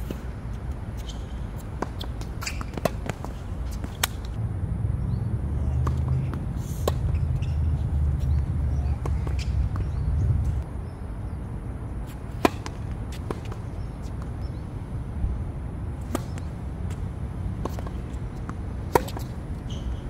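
Tennis ball rally on a hard court: sharp single pops of racket strikes and ball bounces, a second or more apart. A low rumble rises for several seconds in the middle.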